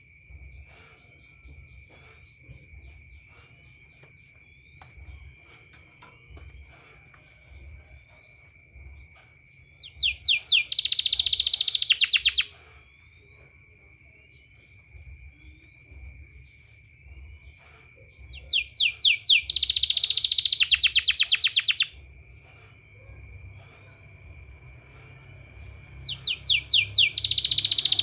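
Domestic canary singing: three loud bursts of fast, rapidly repeated trill notes, each lasting two to three seconds, about ten seconds in, about nineteen seconds in and near the end, with faint short rising chirps between them. A steady, thin, high tone runs underneath.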